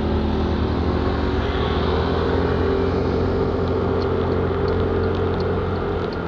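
A motor vehicle's engine running steadily at a constant speed. From about two-thirds of the way in, light scattered ticks that fit raindrops join it.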